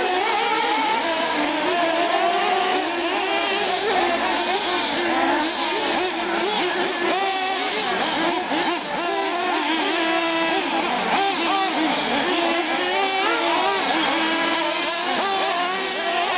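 Several 1/8-scale nitro R/C buggies and trucks racing at once, their small high-revving engines overlapping and rising and falling in pitch as they accelerate and back off around the track.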